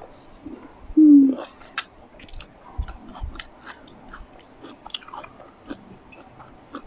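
Close-up chewing of muscadine grapes: a run of small wet clicks and smacks from the mouth, with a short low hum about a second in that is the loudest moment.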